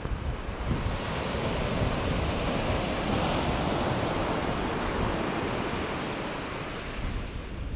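Surf on a sandy beach: a wave breaks and washes up the shore, swelling to its loudest about halfway through and fading near the end, with wind buffeting the microphone.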